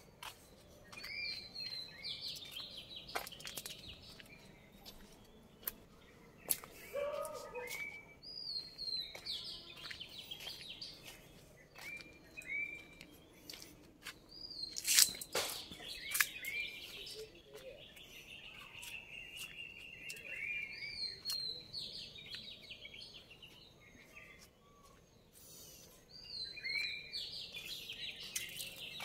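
A songbird singing a short phrase of high, down-slurred whistled notes, repeated about every six seconds. Sharp clicks are scattered through it, the loudest about halfway.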